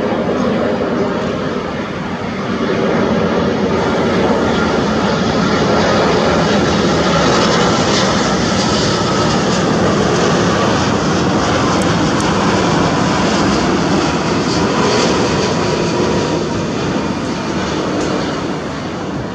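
Boeing 787-10 airliner's jet engines on final approach: a loud, steady rushing that swells a few seconds in and eases off near the end, with a faint steady whine on top.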